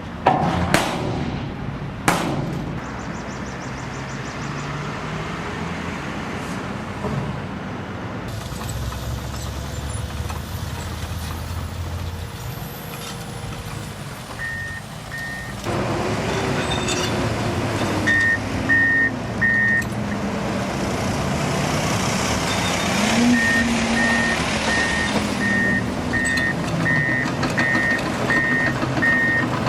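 Heavy construction machine's diesel engine running, with two sharp knocks near the start. From about halfway through its reversing alarm beeps repeatedly while the engine rises and falls in pitch under load.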